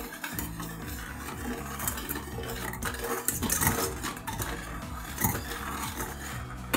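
Wire whisk stirring milk and cream in a stainless steel saucepan: liquid swishing, with the metal wires clinking and scraping against the pan's sides and bottom.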